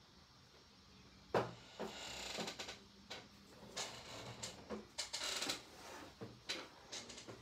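Handling noise: a sharp knock about a second in, then a run of clicks, knocks and rustles.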